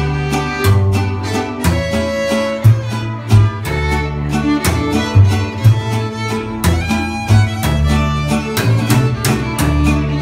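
Live acoustic string ensemble playing an instrumental: a violin carrying the melody over steady strummed acoustic guitar chords and deep upright bass notes.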